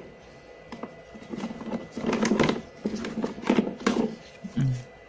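Stiff plastic feed-trough hangers and covers knocking and rustling against each other and a cardboard box as they are handled, in clusters of clicks that are loudest in the middle. Near the end there is a brief low sound that falls in pitch.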